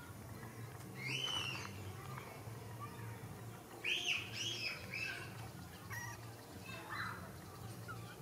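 A baby monkey squeaking in short high calls that rise and fall in pitch: one about a second in, three in quick succession around four seconds in, and a few fainter ones later. A steady low hum runs underneath.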